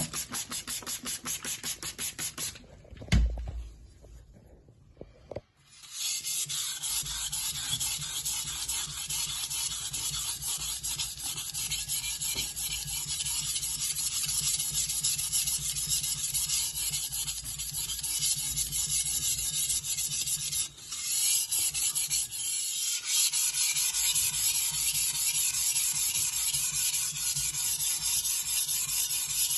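Chinese cleaver blade being stroked across a wet sharpening stone. It opens with quick, even strokes, about five a second. About three seconds in there is a single knock, then a short pause, then a long, continuous grinding rub with one brief break partway through.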